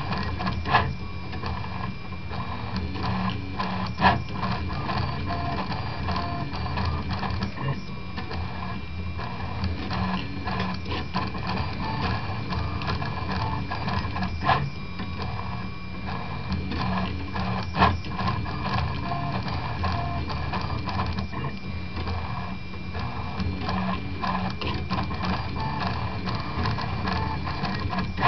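Prusa Mendel 2–style RepRap 3D printer running a print: stepper motors whirring and buzzing as the axes move, over a steady high whine. A few sharp clicks stand out, about a second in, around four seconds, and twice in the middle.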